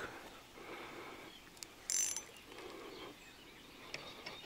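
Fishing reel being wound while a hooked tench is played: faint mechanical clicking and whirring, with a short louder rattle about two seconds in.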